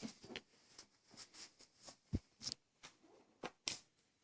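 Small clicks, taps and rustles of pocket gear being handled, with one sharper knock about two seconds in, like an item set down on a surface.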